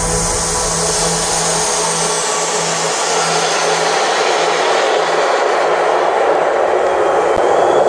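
Live electronic dance music over arena speakers in a breakdown: the beat and bass drop out about two seconds in, leaving a dense, steady wash of noise blended with the crowd.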